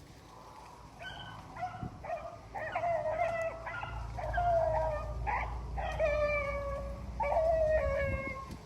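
A pack of rabbit hounds giving tongue on a running rabbit's scent, several dogs overlapping in drawn-out howling cries from about a second in.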